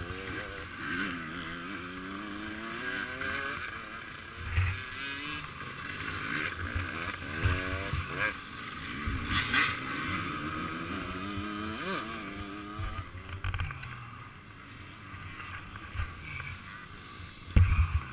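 Dirt bike engines revving, their pitch rising and falling again and again as race bikes pass, with a few low knocks and a sharp knock near the end.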